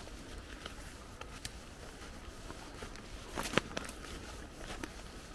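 Footsteps walking through dry fallen leaves, a steady rustle and crunch of leaf litter with scattered small cracks, the sharpest about three and a half seconds in.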